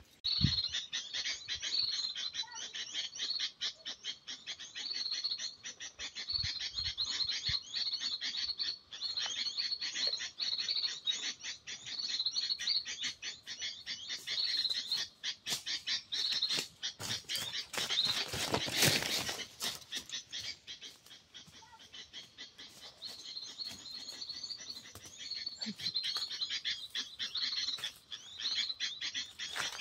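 Continuous fast, high-pitched chattering and chirping bird calls with dense rapid ticks, the kind of call used to lure small birds to glue-stick perches. A brief rush of noise about nineteen seconds in.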